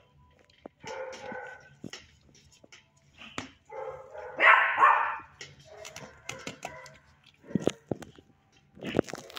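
Six-month-old puppy barking and yipping in short bursts, the loudest about halfway through, with clicks and rustling as it mouths a foam pad.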